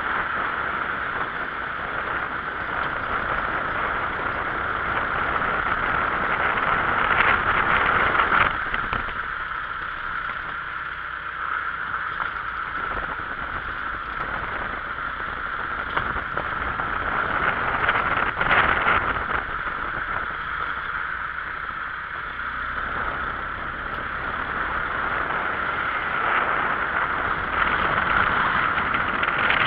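A car driving along, with steady road and engine noise heard from inside the cabin, swelling and easing a little over several seconds.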